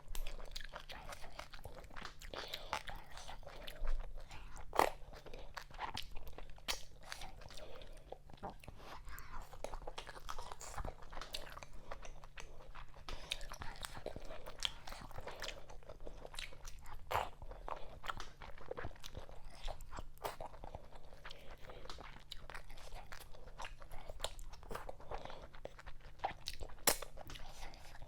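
Close-miked eating of fufu with okra vegetable soup: wet chewing with a dense run of mouth smacks and clicks, a few louder ones about four seconds in and again near the end, over a faint steady hum.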